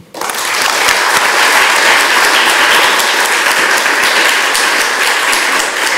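Audience applauding: many hands clapping together, rising quickly just after the start and then holding loud and steady.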